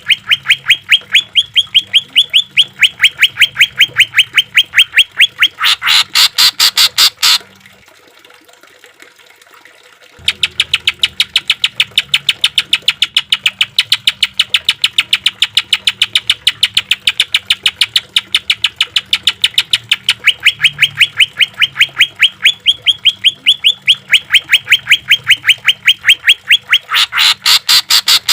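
Cucak ijo (green leafbird) singing a fast machine-gun run of sharp, evenly repeated notes, about six a second: its 'tembakan' burst. Twice the run turns harsher and louder for a second or so, and it breaks off for a few seconds about a quarter of the way in.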